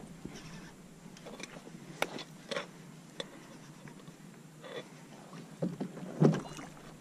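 Scattered small clicks and knocks of tackle and hull on a plastic fishing kayak over a faint steady hiss, with a louder short thump about six seconds in, as a hooked redfish is played on a bent rod.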